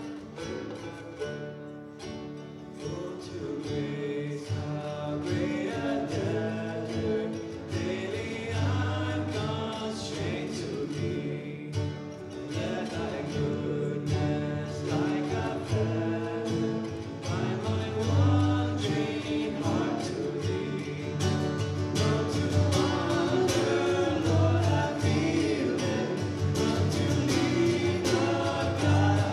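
Live acoustic band: banjo and acoustic guitars strummed under men's voices singing together. The singing comes in about two seconds in.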